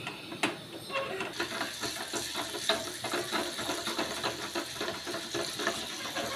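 Mustard seeds, chana dal and urad dal sizzling and crackling in a small pan of hot oil, with many quick irregular pops over a steady hiss, while a wooden spoon stirs them against the steel pan.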